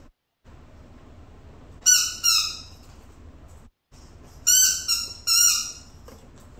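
Dog whining in short, high-pitched cries that dip slightly in pitch: two about two seconds in, then three more close together about four and a half seconds in.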